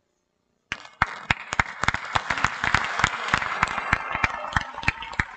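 Audience applauding, starting suddenly about a second in, with single close claps standing out; the clapping is densest in the middle and thins to scattered claps near the end.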